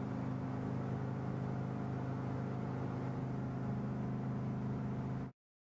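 Motorboat engine running at a steady speed with water and wind noise, then the sound cuts off suddenly about five seconds in.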